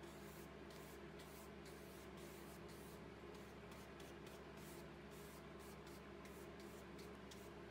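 Flat paintbrush stroking matte medium onto collage paper: a quick, irregular run of faint scratchy brush strokes over a steady low hum.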